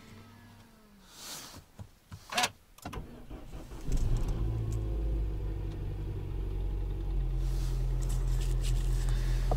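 Cold start of a Citroën C4 sedan's 150-horsepower 1.6 THP turbo petrol engine at about −8 °C. After two short noises, the engine catches about four seconds in and settles into a steady fast cold idle at around 1400 rpm.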